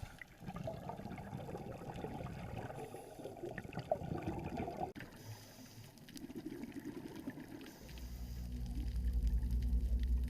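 Water sounds from a dive: sloshing and bubbling after entry into the sea, with an abrupt change about halfway through and a low rumble building in the last couple of seconds.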